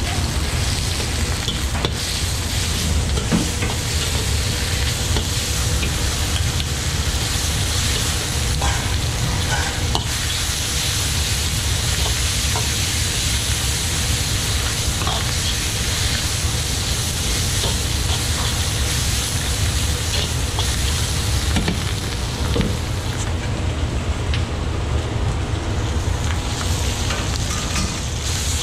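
Pork slices sizzling in hot oil in a carbon-steel wok, stirred and scraped with a metal ladle that knocks against the pan now and then. A steady low rumble runs underneath.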